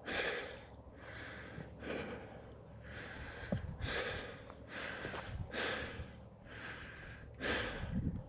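A person breathing hard through the mouth, quick regular in-and-out breaths, winded from a steep rocky climb.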